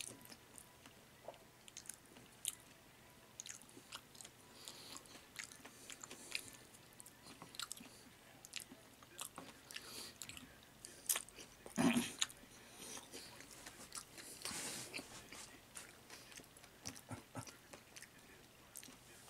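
Close mouth sounds of a person chewing meatballs: soft wet chewing with small clicks throughout, and a few louder smacks, the loudest about twelve seconds in.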